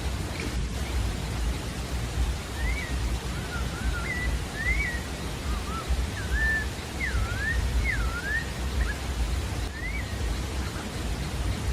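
Pale-breasted thrush (sabiá-da-várzea) singing a phrase of short whistled notes that slide up and down, starting a few seconds in and ending with a single note near the end. Over a steady low rumbling noise.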